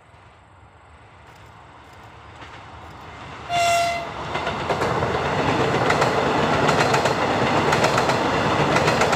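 DP6 diesel multiple-unit train approaching and growing louder. It gives one short horn blast about three and a half seconds in, then runs close by with a heavy rumble and rapid clickety-clack of wheels over rail joints.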